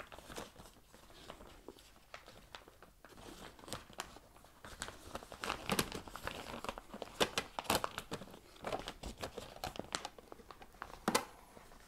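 A glossy carrier bag rustling and crinkling as a clear plastic box inside a tote bag is pushed into it, with many small clicks and knocks of plastic. The handling is sparse at first and gets busier about four seconds in.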